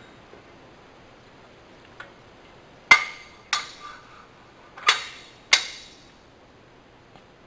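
Metal parts of a compressor valve and its steel cage knocking together as the valve is set by hand into the cage: four sharp, ringing clinks in two pairs.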